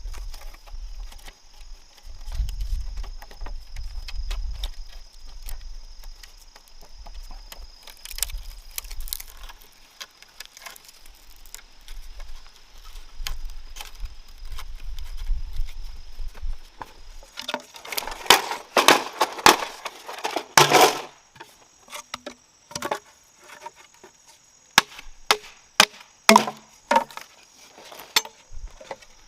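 Bamboo being chopped and split with a blade: a quick run of loud, sharp strikes and cracks, then scattered single knocks.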